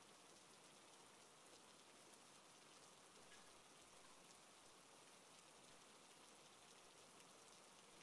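Near silence: a faint, steady hiss with light crackle.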